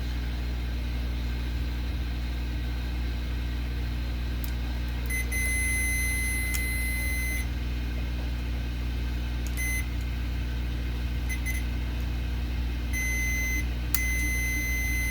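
Multimeter continuity tester beeping as its probes are held across the mouse button's contacts: a long steady beep of about two seconds, a few short beeps, then another long beep near the end, over a steady low hum. The unbroken tone points to what is taken for a dead short across the button.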